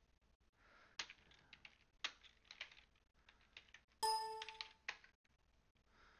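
Typing on a computer keyboard: scattered key clicks, with a short electronic alert chime about four seconds in, the loudest sound.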